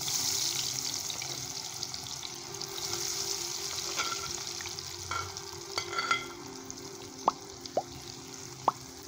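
Besan-coated potato sticks sizzling as they start to fry in very hot ghee in a kadai, the sizzle strongest just after they go in and easing a little. A few short clicks near the end.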